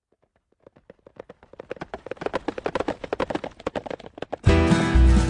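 Horse hooves galloping, a sound effect of rapid hoofbeats that grow steadily louder as the horse approaches. Loud music comes in near the end.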